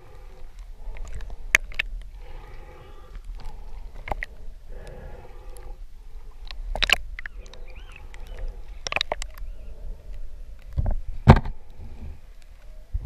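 Water sloshing and gurgling around a waterproof action camera as it dips between the surface and underwater, with sharp knocks and clicks on the housing, the loudest about eleven seconds in. A hiss comes back about every two and a half seconds, typical of a snorkeler breathing through the tube.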